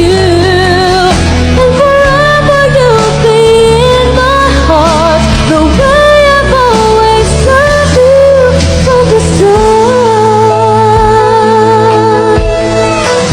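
Background music: a pop-style song with a high, wavering sung melody over a steady bass.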